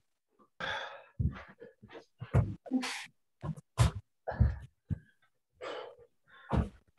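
Hard, sharp breaths and dull thuds of hands and feet landing on a carpeted floor during burpees, coming in about a dozen short bursts with dead silence between them.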